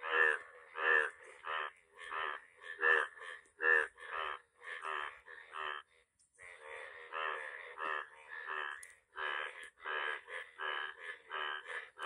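Male Indian bullfrogs in bright yellow breeding colour croaking with blue vocal sacs inflated: a rapid run of short, rasping croaks, about two a second, with a brief break about halfway. These are breeding calls of the monsoon rains.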